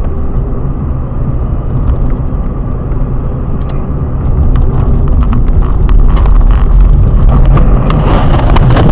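Car engine and tyre rumble heard from inside the cabin, getting louder about halfway through, with scattered knocks and rattles. Near the end comes a loud rushing clatter as the car ploughs off the road into deep snow.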